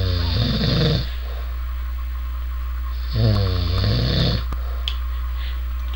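A sleeping man snoring really loud: one snore ends about a second in and another comes about three seconds in, lasting just over a second, over a steady low hum.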